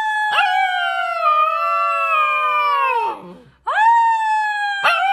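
A husky-type puppy howling, high-pitched: one long howl that sags and falls away about three seconds in, then a second long howl starting just after.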